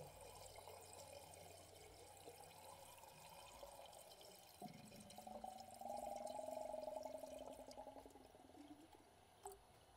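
Distilled water poured into a car's coolant reservoir to flush the cooling system: a faint trickle at first, then from about halfway a gurgling pour whose pitch slowly rises as the tank fills, fading out near the end.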